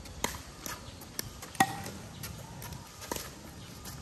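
Pickleball rally: sharp hollow pops of the plastic ball off paddles and the concrete court, about seven in four seconds at uneven spacing, the loudest one with a brief ring.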